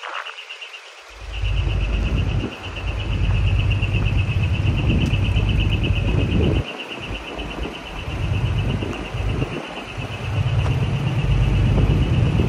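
Large truck's diesel engine running with a deep exhaust rumble, which starts about a second in and dips away briefly three times. A steady, rapidly pulsing high chirring tone runs over it.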